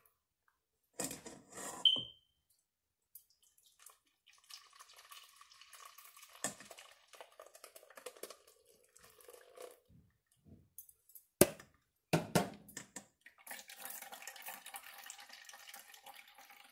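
A mesh strainer clatters onto a stainless steel bowl with a short metallic ring. Then fresh apple juice is poured from a plastic pitcher into the strainer and trickles through into the bowl, broken about halfway by a few sharp knocks.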